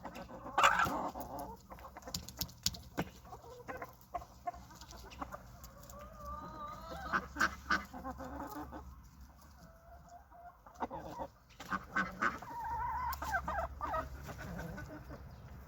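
Chickens clucking, with short wavering calls and scattered sharp taps among them.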